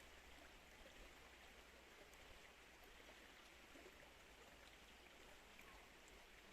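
Faint, steady flow of river water.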